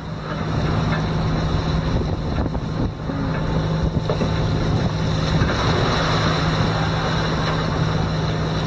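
A steady low hum under a constant rushing noise.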